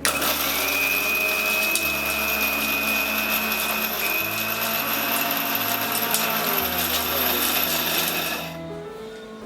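Electric grinder dry-grinding roasted whole spices (fennel, coriander, cumin, peppercorns, cloves, cardamom) into powder: a steady motor whine over a gritty rush. It starts abruptly and cuts off about eight and a half seconds in. Soft background music plays underneath.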